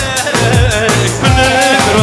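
Live band playing Kurdish halay dance music: a wavering lead melody over a steady, repeating drum beat.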